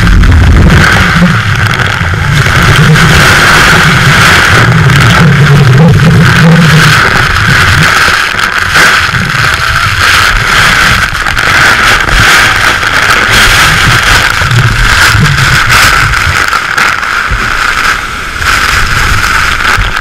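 Loud, steady roar of a waterfall's spray and falling water pouring over an open speedboat. A low rumble rises and falls underneath.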